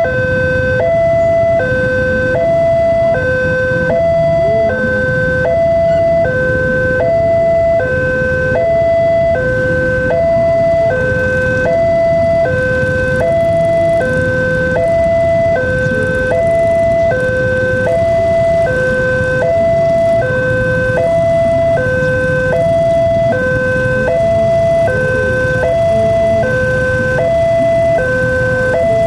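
Indonesian railway level-crossing warning alarm sounding continuously: an electronic two-tone signal alternating between a higher and a lower note about once a second, warning that a train is approaching and the barrier is down.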